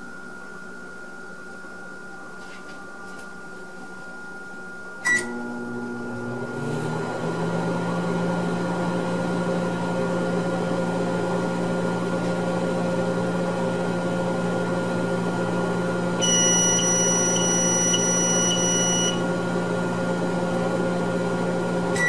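GE over-the-range microwave oven starting with a click and short beep about five seconds in, then running with a steady hum. For about three seconds past the middle, a high pulsing tone sounds over the hum.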